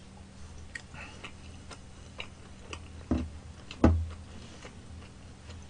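Scattered faint clicks and ticks over a steady low hum. About three seconds in come two louder dull knocks, less than a second apart, fitting a glass mug of cola being put down on a wooden desk.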